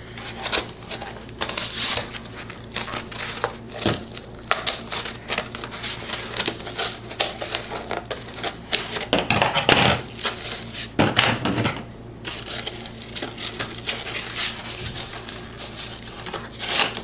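Scissors cutting through thick corrugated cardboard: a string of irregular sharp snips and crunches.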